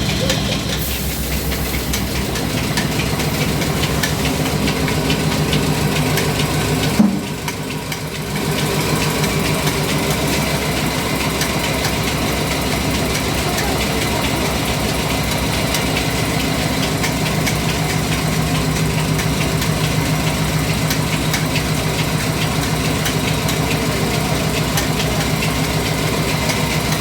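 An engine running steadily with a fast, even beat of pulses and a low hum. There is a sharp knock about seven seconds in, then a brief dip before it runs on unchanged.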